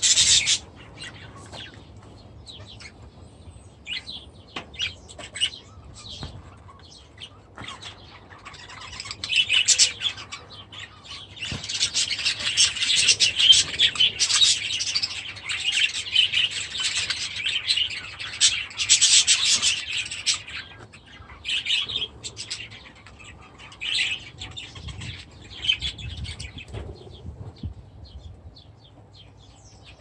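Flock of budgerigars chirping and chattering: scattered calls at first, then dense, continuous chatter from about twelve to twenty seconds in, thinning to occasional chirps near the end.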